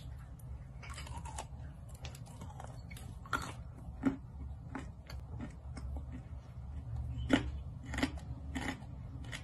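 A person biting and chewing a dry chunk of red clay coated with clay paste: irregular sharp crunches with softer chewing between them, the loudest a little past seven seconds in.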